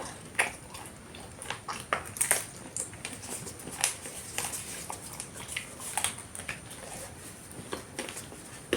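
Close-miked chewing and lip smacking while eating a soft tortilla wrap of beef rendang: irregular wet mouth clicks, several each second.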